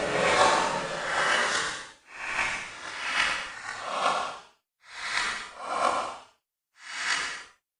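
Crowd cheering and applause dying away: steady for about two seconds, then breaking into a few separate fading bursts of cheering before stopping.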